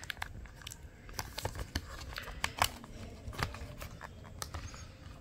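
Irregular small plastic clicks and taps as a battery is worked into place in an opened laptop's bottom case, the battery proving hard to seat.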